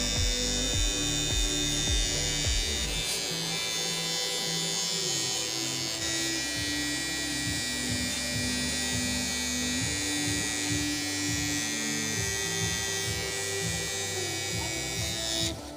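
Nova cordless hair trimmer running with a steady buzz as its bare blades, no guard comb fitted, cut short hair around the ear and nape; it cuts off near the end. Background music plays underneath.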